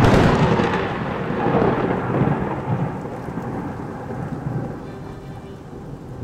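A thunderclap crashes and rolls into long rumbling that swells again a couple of times and slowly dies away, over steady rain.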